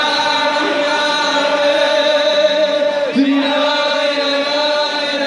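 Loud live Hasidic wedding dance music: a male choir singing long held notes over a band, with the dancing crowd singing along.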